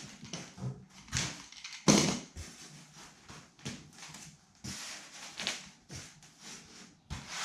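Handling noises from working on a window screen: irregular rustling of the screen mesh and clicks and knocks from the frame and tools, with a sharper knock about two seconds in and a longer rustle near the end.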